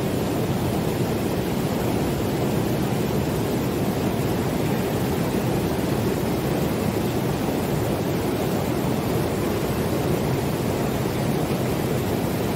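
Fast-flowing river rushing over rocky rapids in a strong current: a steady, even rush of water.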